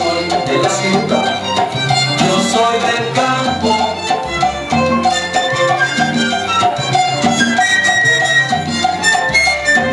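Salsa music playing, with a repeating bass line under melody lines and percussion.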